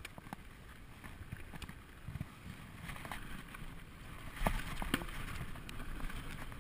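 2012 Specialized SX Trail mountain bike rolling down a dry dirt singletrack: tyres rumbling over the ground with scattered clicks and rattles from the bike. It gets louder about four seconds in, with a couple of sharp knocks.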